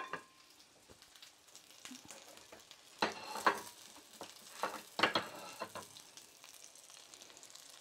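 Corn fritters sizzling steadily in canola oil in a frying pan, with a few sharp clinks and knocks, loudest about three and five seconds in.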